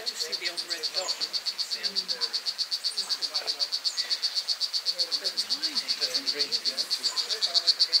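Poison dart frog calling: a rapid, even trill of short, high-pitched pulses, about eight a second, growing louder toward the end.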